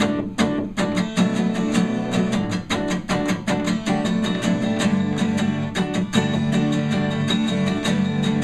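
Acoustic guitar strummed in a steady rhythm of quick, even strokes: the instrumental break of a live acoustic pop-rock song, with no vocals.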